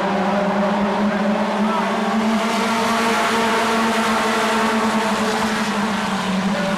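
A pack of short-track stock cars racing, their engines running at speed in a steady, loud drone that swells in the middle as the cars pass close by.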